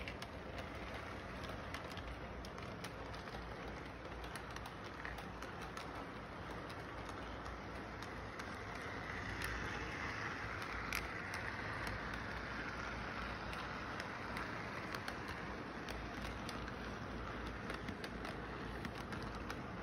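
Electric model train running steadily on its track, a continuous rumble of motor and wheels with many small clicks. It grows a little louder about halfway through as the cars pass close by.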